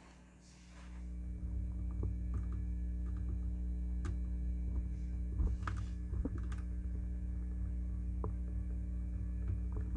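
Low, steady hum of a small motor, likely a motorized display turntable, starting about a second in, with scattered light clicks and taps of plastic being handled.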